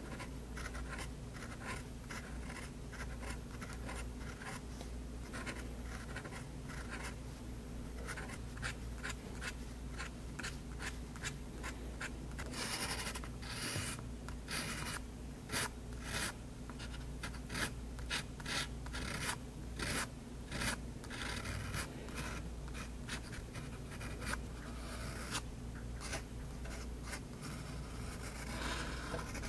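Extra-fine nib of a Faber-Castell Hexo fountain pen scratching across paper in many short, quick strokes, with a run of louder strokes in the middle.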